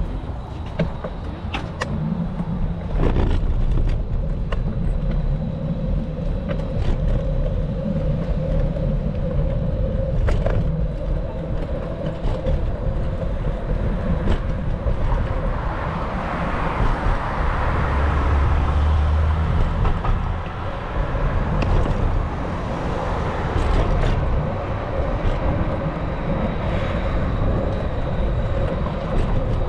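City street traffic with a steady low rumble of wind on the microphone. A vehicle swells past about halfway through, rising and then fading.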